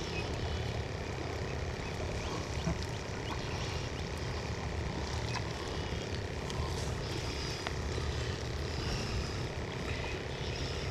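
Steady low outdoor rumble, with faint rustles and light ticks as a nylon cast net is gathered up by hand.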